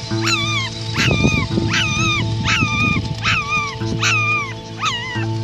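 A young Schipperke puppy crying in a series of high whimpering yelps, about two a second, each rising then falling in pitch, over background music.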